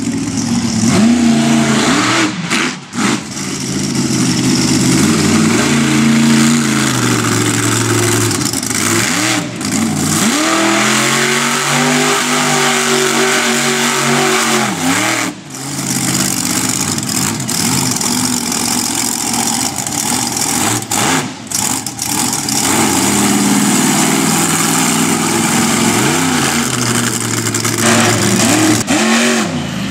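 Red Baron monster truck's engine revving hard, its pitch climbing and falling again and again as the throttle is worked, with one long high rev about halfway through.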